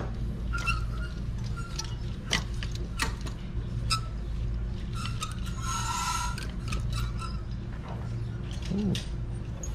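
Wooden clothes hangers with metal hooks being pushed along a chrome clothing rack rail, clicking and clinking irregularly as shirts are flicked through, over a steady low hum.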